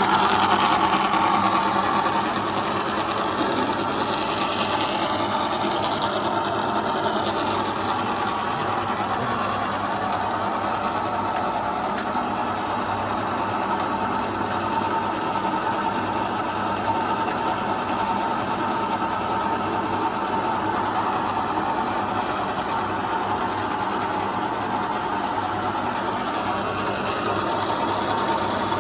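Victoria universal milling machine running under power: a steady mechanical noise, a little louder for the first couple of seconds.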